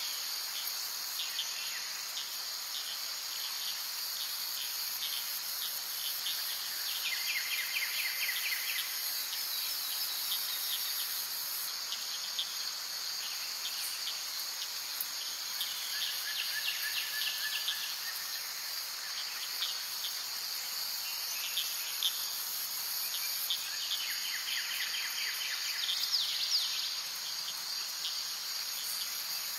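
A steady, high-pitched chorus of insects, with short chirping trills recurring every few seconds.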